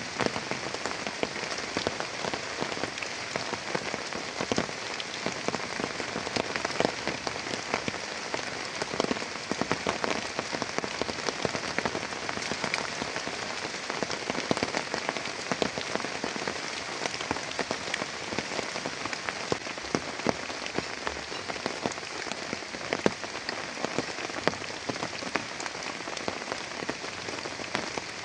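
Heavy rain falling steadily, with many sharp individual drops pattering on a nearby surface.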